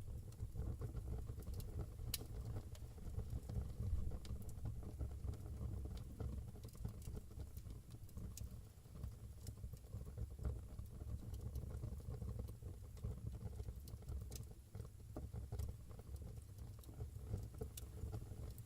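Wood fire burning in a fireplace: a low, steady rumble with scattered sharp crackles and pops.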